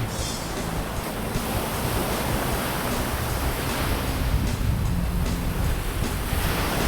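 Ocean surf breaking on a beach, the wash swelling about two seconds in and again near the end, with some wind on the microphone.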